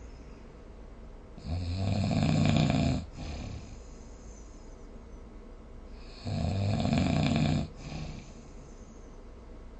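A sleeping person snoring: two loud, low snores about five seconds apart, each lasting about a second and a half, with quieter breathing between them.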